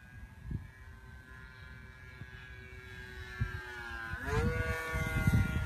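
RC model Tucano plane's motor and propeller whining as it flies overhead. It grows louder, and its pitch drops about four seconds in as it passes closest. Wind gusts buffet the microphone.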